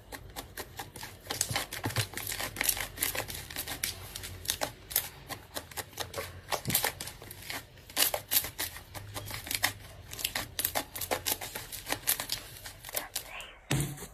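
Slime being squeezed and poked, a dense run of irregular crackling and popping clicks.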